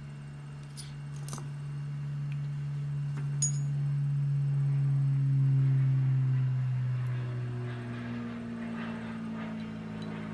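A low, steady engine drone swells louder over several seconds and then shifts to a higher tone near the end. A few light metallic clicks from pistol parts being handled come in the first few seconds.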